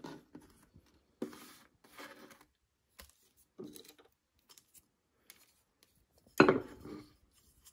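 Terracotta flowerpots being handled on a wooden board: a few light knocks and scrapes, then a sharper knock about six seconds in.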